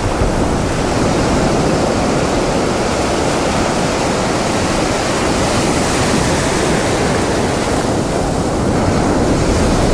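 Ocean surf breaking and foamy water washing around the shallows, a steady rush with wind rumbling on the microphone.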